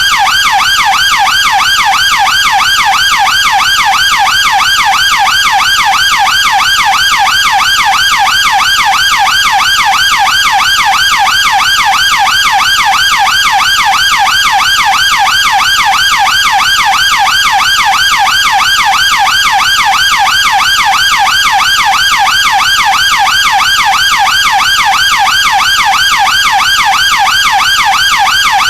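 British police car siren on its yelp setting: one loud tone sweeping rapidly up and down several times a second, with no change in pace.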